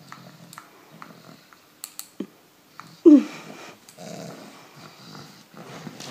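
A pug with a pacifier in its mouth grunting and snuffling, with a few soft clicks. About three seconds in comes one short, louder dog cry that falls in pitch.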